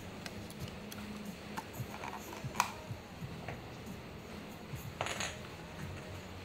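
A few sharp plastic clicks and clinks as a clear dome lid is pressed onto a plastic cup of iced coffee, the loudest about two and a half seconds in. Ice shifts in the cup when it is lifted, near the end.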